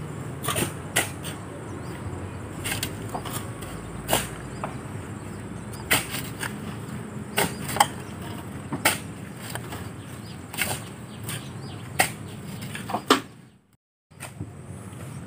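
Steel shovels biting into river sand and sand being tossed into a pickup's bed: sharp, irregular scrapes and knocks about once a second over a steady low hum. The sound drops out briefly near the end.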